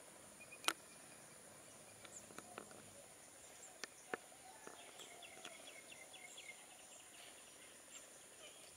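Faint, steady high-pitched chirring of insects, with a few sharp clicks scattered through, the loudest about a second in, and a quick run of ticks midway.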